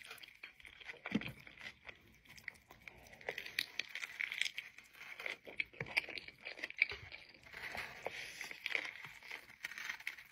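Close-miked eating: a bite into a soft-bun burger held in a paper wrapper, then wet chewing with many small clicks and smacks, and the wrapper crinkling.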